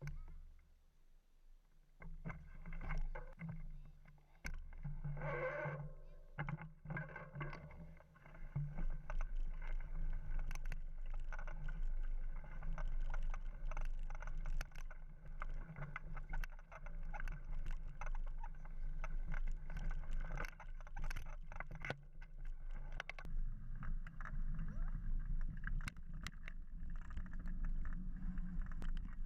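Mountain bike riding on a dirt trail: tyre noise and many short knocks and rattles of the bike over bumps, intermittent at first and steady from about eight seconds in.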